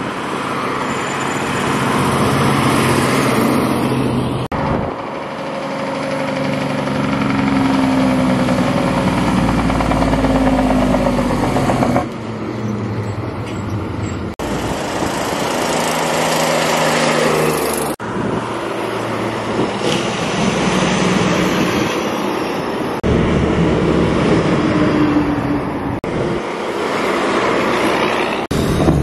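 Heavy trucks driving past on a road: diesel engines running with their note rising and falling, over tyre and road noise. The sound changes abruptly several times as one short clip follows another.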